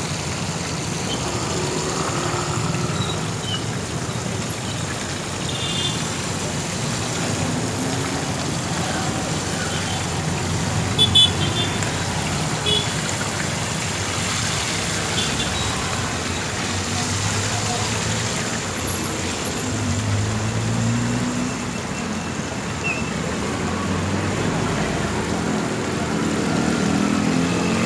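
Busy roadside ambience: traffic running steadily past, background voices, and the sizzle of fish frying in oil in a wide shallow pan. A short sharp clatter comes about eleven seconds in.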